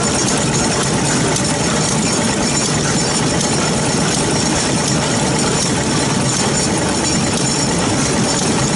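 Small Yanmar marine diesel engine running steadily.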